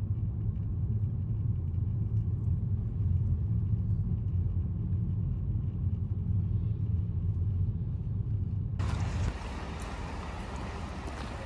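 Steady low rumble of a car's engine and tyres heard from inside the cabin while driving. About nine seconds in it cuts to a quieter hiss of wind on the microphone outdoors.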